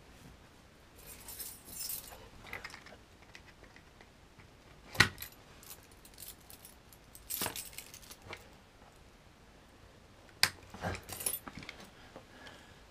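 A bunch of keys jangling as they are picked up and handled, with a few sharp clicks from the Citroen flip-key fob being worked open, the loudest about five seconds in and more near the end.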